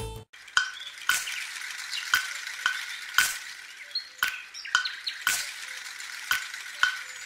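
Sharp clicks at a steady rhythm, about two a second, over a faint crackling hiss.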